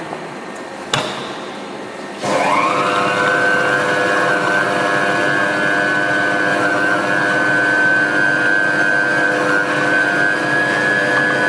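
QS-9J stainless-steel bowl chopper (0.65 kW motor) loaded with bean curd: a sharp click about a second in, then the motor and blades start about two seconds in, spin up quickly and run at a steady whine.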